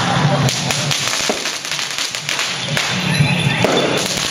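Firecrackers popping in scattered, irregular cracks over loud temple-procession music.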